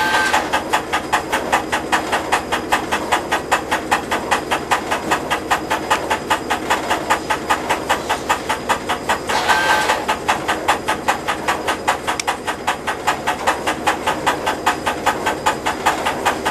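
Diesel engine of a halted tourist railcar idling, with an even, rapid beat of about four to five pulses a second. A short high tone sounds twice, once at the start and once about ten seconds in.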